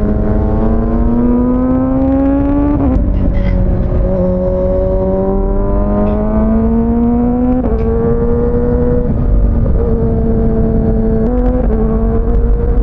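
Kawasaki ZX-6R inline-four engine pulling through the gears on the move: the pitch climbs steadily, then drops sharply at an upshift about three seconds in and again near eight seconds, before holding fairly even with a brief dip near the end. A low rumble of wind runs underneath.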